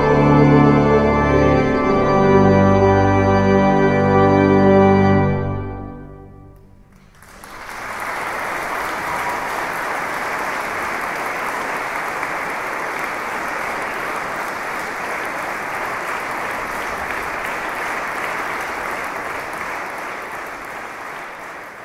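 A church pipe organ and choir hold the closing chord of a hymn, which dies away in the church's reverberation about five to six seconds in. About a second later an audience breaks into steady applause that lasts to the end.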